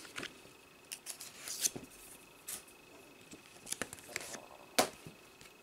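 Paper pages and covers of a softcover coloring book being handled: pages flipping and the book closing, heard as a scattered run of short, crisp rustles and clicks. The sharpest click comes a little before the end.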